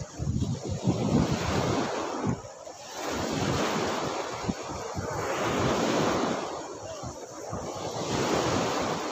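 Small lake waves washing and breaking in the shallows close to the microphone, swelling and easing in surges a few seconds apart, with wind buffeting the microphone.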